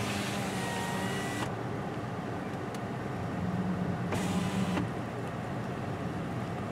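Car cabin noise: the engine running with a steady low hum, and a hiss that swells twice, for the first second and a half and again briefly about four seconds in.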